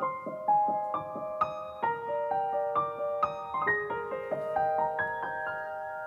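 Gentle background piano music: a slow melody of single struck notes that ring on and fade.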